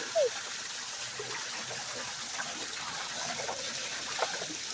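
Rainwater runoff flowing into a small drain pipe: a steady rush of running water with a few short gurgles.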